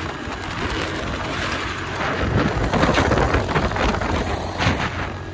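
Wind rushing over the microphone of a moving motorcycle, with road and engine noise underneath; the rush grows louder and gustier about two seconds in.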